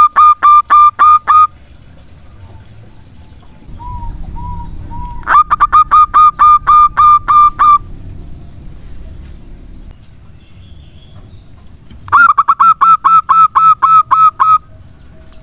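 Zebra dove (perkutut) song: three runs of rapid staccato cooing notes, about six a second, each run lasting about two seconds, the first already under way at the start. A few soft single coos fall between the first and second runs.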